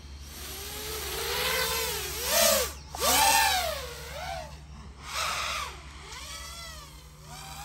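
FPV quadcopter's motors and propellers spinning up and lifting off, a high whining buzz. Its pitch swoops up and down again and again as the throttle changes. It is loudest between about two and three and a half seconds in.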